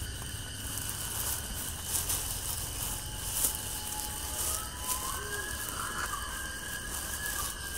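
Night forest ambience: a steady high insect drone over a hiss, with faint scattered crackles and a few faint thin whistling tones in the latter half.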